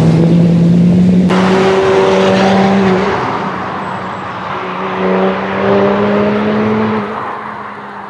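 Performance car engine and exhaust at high, steady revs, with the pitch stepping up about a second in. It is loud at first, dips around three seconds in, rises again, then fades near the end.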